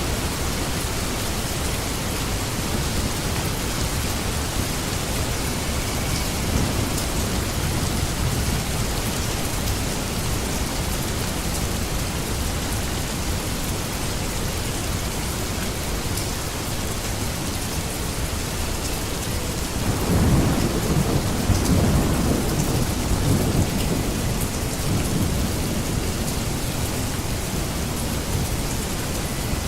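Steady rain falling, with a low rumble of thunder rolling in about two-thirds of the way through.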